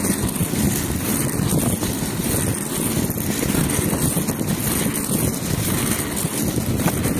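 Steady rolling noise of wheels on rough asphalt at speed, mixed with wind on the microphone.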